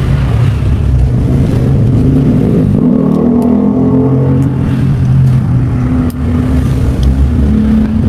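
Steady low engine rumble, its pitch shifting up and down a little around the middle.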